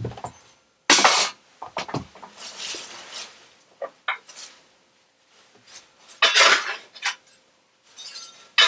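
Metal clanking and scraping in a fireplace, in several separate bouts with pauses between them.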